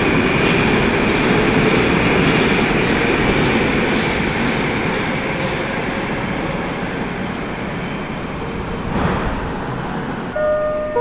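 Moscow metro train pulling away from the platform: a loud, steady rumble of wheels and running gear with a faint high whine, fading gradually as it leaves. Near the end, a brief sound of a few steady tones begins.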